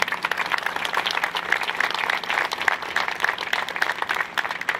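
Audience applauding: many hands clapping at once in a dense, uneven patter.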